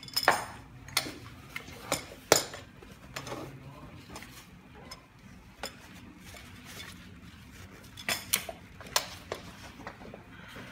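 Irregular clicks, clinks and knocks of a baby bed rail's tubes and white plastic hinge fittings being handled and pushed together, with the loudest knocks in the first two or three seconds and another cluster about eight to nine seconds in.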